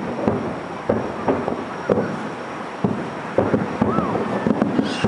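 Aerial firework shells bursting at a fireworks display: an irregular run of sharp bangs, several a second, with rumbling between them.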